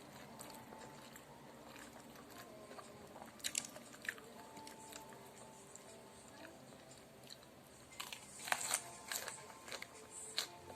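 Close-up eating sounds: crunchy bites and chewing, with scattered crisp crunches and a louder run of crunches near the end.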